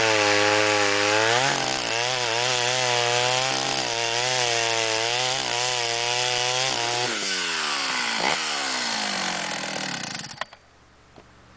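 Jonsereds 621 two-stroke chainsaw with a skip-tooth chain running flat out through a soft maple log, its engine note dipping and recovering under the load of the cut. About seven seconds in the engine note falls steadily over about three seconds as the saw winds down, ending with one sharp knock.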